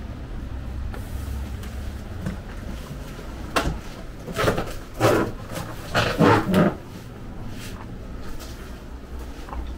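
A run of short knocks and creaks in the middle stretch, over a low steady rumble.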